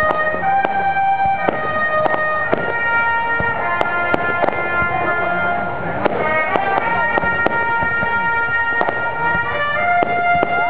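Orchestral music with long held notes, over fireworks going off: frequent sharp bangs and pops from shells bursting overhead, spread through the whole stretch.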